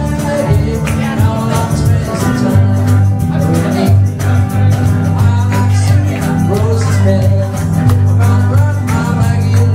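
Live band playing a blues number: electric guitar, bass and singing, with the audience clapping along in time.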